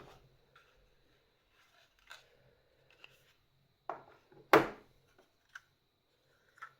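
Plastic clicks and knocks from a 500%-scale 3D-printed keyboard switch (PLA housing, PETG spring) being worked by hand. The loudest knock comes about four and a half seconds in, as the stem bottoms out.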